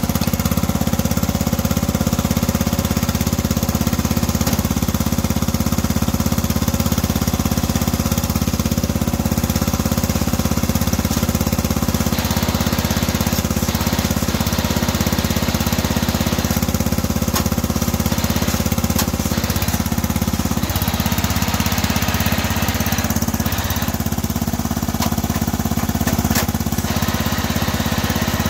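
Lawn tractor's small gasoline engine running steadily, warming up soon after a cold start.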